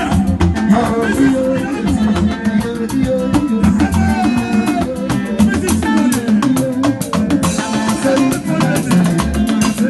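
Upbeat Latin dance music with a steady drum and percussion beat, a pulsing bass and some singing.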